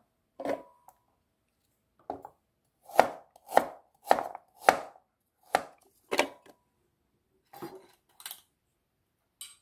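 A kitchen knife slicing fresh ginger on a plastic cutting board: about a dozen separate, unevenly spaced chopping strokes, loudest in the middle and fainter near the end.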